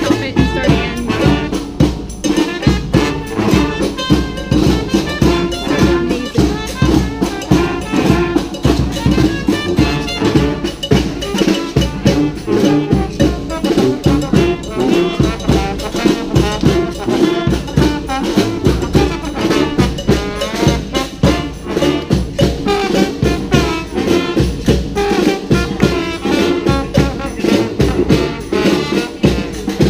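Brass street band with drums playing a cumbia, trumpets and trombones carrying the tune over a steady beat.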